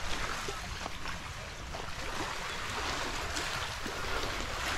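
Sea waves washing steadily on the shore, an even rushing hiss with no distinct breaks.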